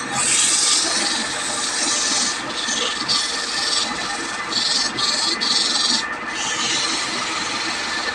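Hissing scrape of a tool or abrasive rubbing on wood, in stretches broken by short pauses.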